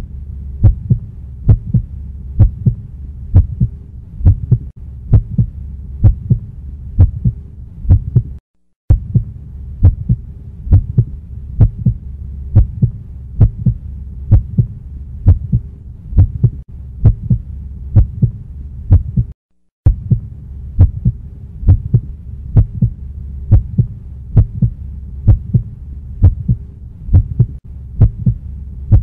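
A steady, regular thumping rhythm over a low hum, cutting out completely for a moment twice.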